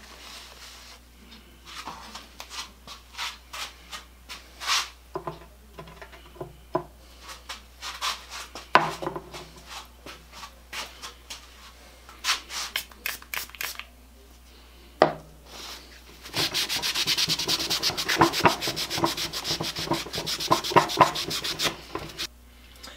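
Cloth rag wiping down a freshly painted cast-iron bench vise: scattered rubbing strokes at first, a sharp knock about two-thirds of the way in, then several seconds of fast, steady rubbing near the end.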